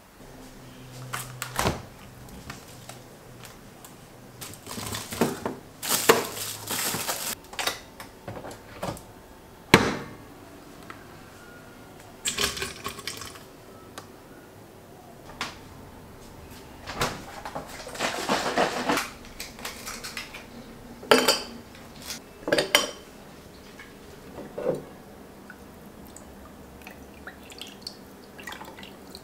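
Kitchen handling sounds: glassware and utensils clinking and knocking every few seconds, with a few longer noisy stretches lasting a second or two.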